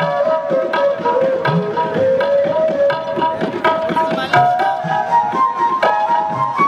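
Instrumental background music: a held, gliding melody over a steady beat of hand-drum strokes.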